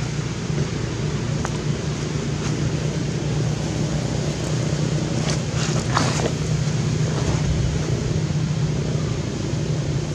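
Steady low outdoor background rumble, with a few faint short high sounds about six seconds in.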